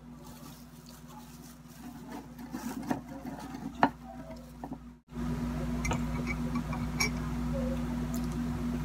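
Plastic wrapping crinkling as bread is handled and pulled out by hand, with a sharp click about four seconds in. After an abrupt break about five seconds in, a steady low hum runs under a few light clicks.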